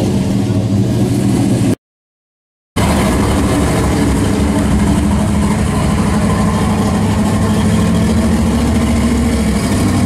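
A classic car's engine running at low speed with a steady burble, broken by a sudden gap of silence lasting about a second, beginning just before two seconds in.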